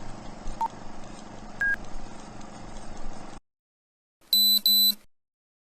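Two quick, loud electronic beeps from an Axon body-worn camera about four seconds in. Before them comes a low background hiss with a couple of faint short chirps.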